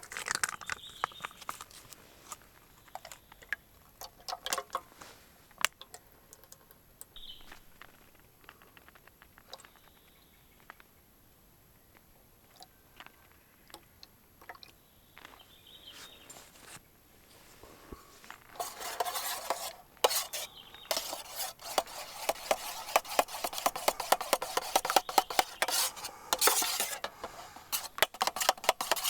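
A metal utensil clinking against camp cookware, a few scattered clinks at first. From about two-thirds of the way in it turns into continuous rapid stirring and scraping in a metal pan.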